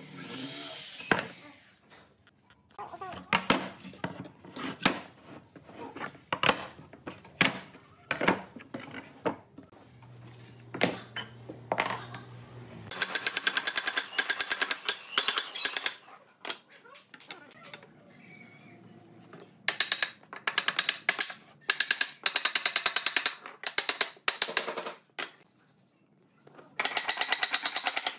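A hand tool working on pine boards: scattered sharp knocks, then from about halfway three bursts of fast, even tapping lasting a few seconds each.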